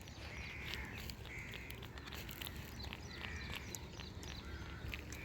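A bird calling faintly outdoors, a series of short, slightly arched calls about a second apart.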